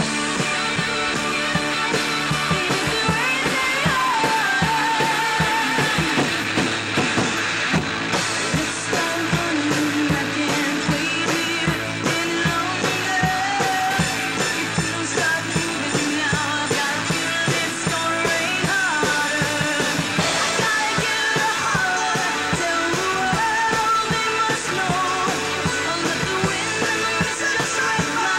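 Rock song playing: a band with drum kit beat and a singing voice over it.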